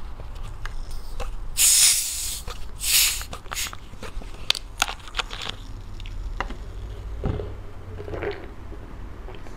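Screw cap twisted off a plastic bottle of Pepsi cola, the pent-up carbonation hissing out in two short bursts, followed by small plastic clicks. Near the end come gulps as the cola is drunk.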